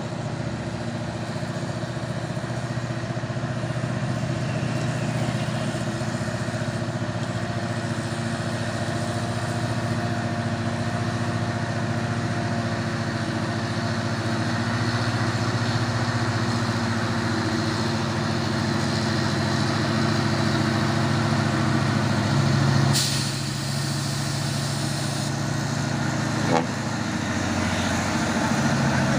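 Heavy diesel truck engine running under load, slowly getting louder. About three-quarters of the way through, a short burst of hiss comes and the engine note dips briefly, and a sharp click follows a few seconds later.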